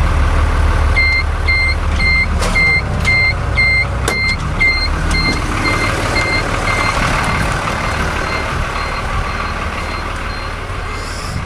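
An electronic warning beeper sounds about twice a second with a high, pure tone. It plays over the steady low running of the Fiatagri 100-90 tractor's diesel engine, and the beeps grow fainter after the middle.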